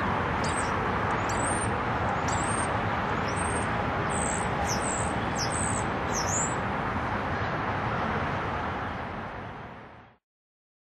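Small birds chirping repeatedly over a steady outdoor roar of city and construction noise. The sound fades out about ten seconds in.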